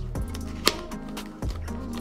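Background music: held instrumental tones over low drum beats, with one sharp click about a third of the way in.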